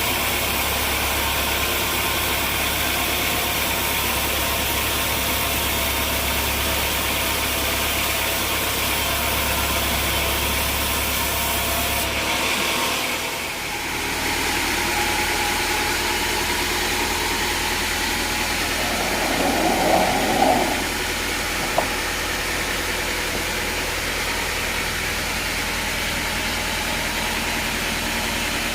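An engine running steadily with a low hum and machinery noise. The sound changes abruptly about halfway through, and a brief louder sound comes around two-thirds of the way in, followed by a single click.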